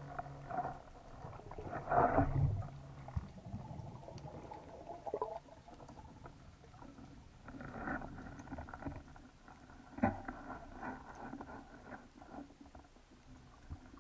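Muffled underwater sound: a faint low rumble with irregular knocks and swells, louder about two seconds in and again near eight and ten seconds.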